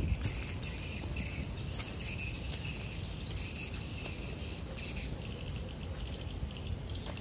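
Insects chirping in the field in pulsed high trills, over a low steady rumble.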